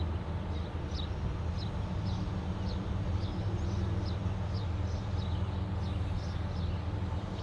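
Steady low drone of an idling diesel locomotive engine, with a small bird chirping about twice a second.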